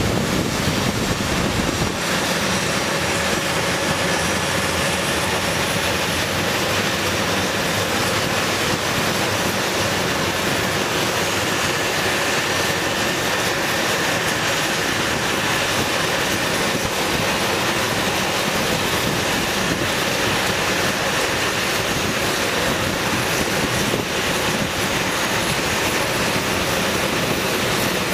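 A-10 Thunderbolt II's two General Electric TF34 turbofan engines running as it taxis: a steady jet rush with a thin high whine. The deepest rumble drops away about two seconds in.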